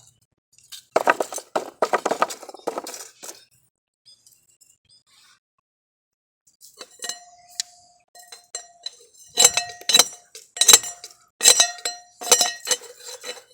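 Metal clinking and knocking as pieces of aluminium dross are worked out of the crucible with a metal tool. A short cluster of clinks comes first, then a pause, then a busier run of sharper strikes in the second half, several of them ringing on briefly with a clear tone.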